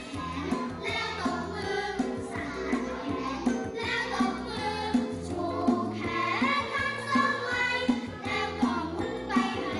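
Background music with singing voices over a steady beat.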